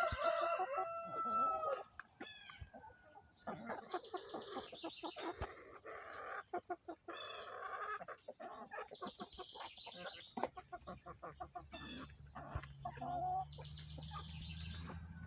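Backyard chickens clucking and pecking at food, with a rooster crowing about a second long right at the start, the loudest sound, and shorter calls later. A steady high-pitched whine runs underneath, and a low hum comes in about two-thirds of the way through.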